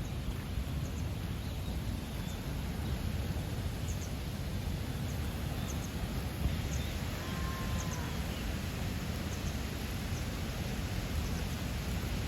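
Outdoor background noise: a steady low rumble, with faint high bird chirps scattered through it and one brief faint call about seven seconds in.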